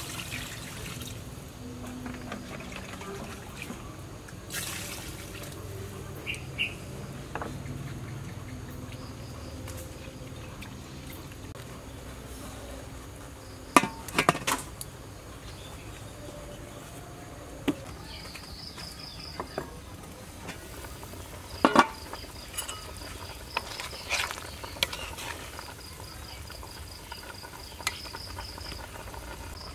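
Water poured into a large metal cooking pot at the start, then a few sharp metal clanks from the pot and its lid, the loudest midway and again a little later. Insects trill in short high pulses in the background through the second half.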